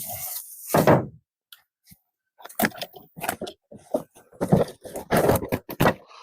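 Brush and branches crunching and scraping as they are handled and pushed through: a series of irregular crackles in short clusters, busiest in the second half.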